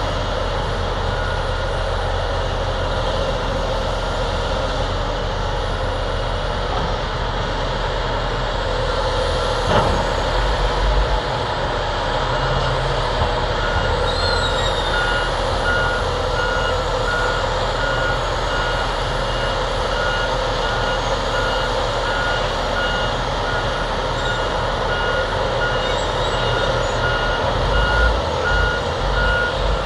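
Diesel engine of heavy earthmoving equipment running steadily, and about halfway through a backup alarm starts beeping in a steady repeating pattern as a machine reverses. A single sharp knock is heard a little before the beeping begins.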